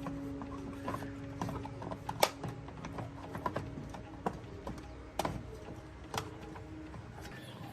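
Irregular light clicks and taps of tools and metal parts being handled during repair work, with a sharper knock a couple of seconds in and another about five seconds in, over a steady low hum that stops about five seconds in.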